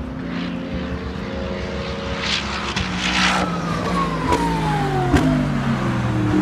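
Racing cars running on the Nürburgring circuit. One passes by with its engine note falling over about two seconds, and a couple of sharp cracks come near the end.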